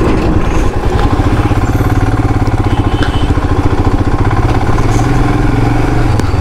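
Royal Enfield Himalayan's 411 cc single-cylinder engine running steadily at low speed as the bike rolls along in slow traffic.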